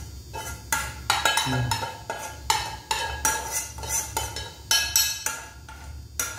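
A metal utensil clinking and scraping against a dish of fried noodles, with about a dozen sharp, irregular clinks that ring briefly.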